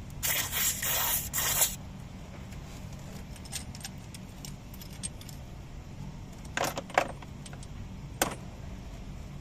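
Aerosol can of foaming engine cleaner sprayed through its straw into the spark plug holes, to loosen carbon deposits inside the cylinders: a loud hiss in three short bursts over the first second and a half. Later come a few sharp clicks, the loudest about seven seconds in, with another a second after.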